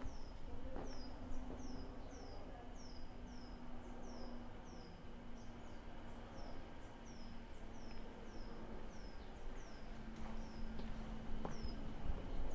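A bird calling over and over, a short high note sliding downward about twice a second, growing sparser near the end. A faint steady low hum runs underneath.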